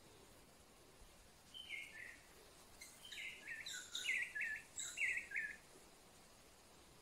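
A wild bird calling: a short two-note falling phrase, then about a second later a quicker run of repeated chirping notes that stops a little over halfway through.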